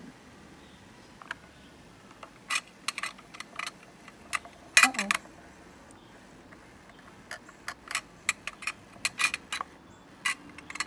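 A battery-powered toy mini washing machine running with a makeup sponge and water in its drum, giving irregular sharp plastic clicks and rattles.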